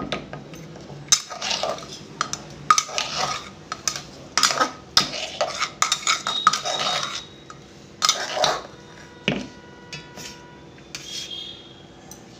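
Metal ladle scraping and knocking inside a pressure cooker as khichdi is scooped out and served onto a steel plate: a string of irregular clinks and scrapes.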